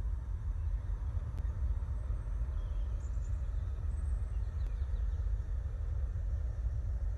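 Steady low rumble of road traffic, with a few faint high bird chirps in the middle.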